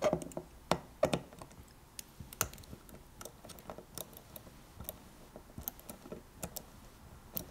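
Small screwdriver turning out tiny screws inside an opened hard drive: light, irregular clicks and ticks of the metal bit on the screws and the drive's metal chassis.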